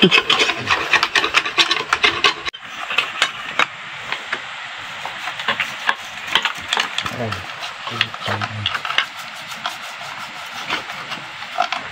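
Scraping and rubbing as packed sawdust and grime are cleaned off a stripped-down chainsaw engine with a screwdriver. Dense, quick scraping strokes for the first two seconds or so, then lighter, scattered scrapes and clicks.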